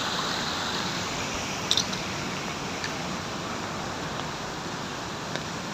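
Steady rushing outdoor background noise, with a brief sharp click about two seconds in.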